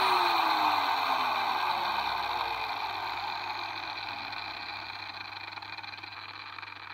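Electric disc grinder switched off and coasting down: its whine falls steadily in pitch and fades away over about seven seconds. The grinder has just been repaired after stalling and throwing abnormal sparks, and spins down smoothly.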